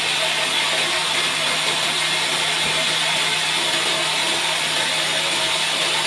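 Large sawmill band saw running, a steady high hiss and whir over a low constant hum.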